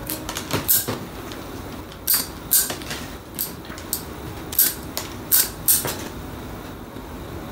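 Ikebana shears snipping willow branches: a dozen or so sharp, crisp cuts in uneven succession, with the stems rustling between them.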